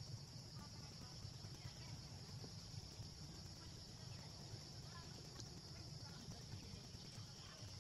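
Quiet outdoor ambience: a steady high-pitched hiss over a low rumble, with a few faint ticks.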